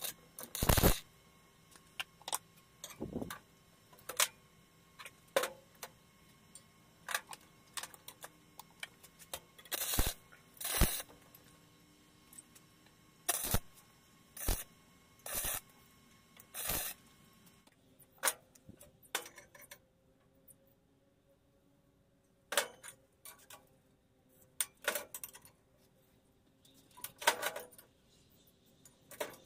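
Stick (arc) welder laying a series of short tack welds on scrap steel: brief, loud crackling bursts, each under a second, about once a second at first. Later come a few sharp metallic clicks as the steel parts are handled.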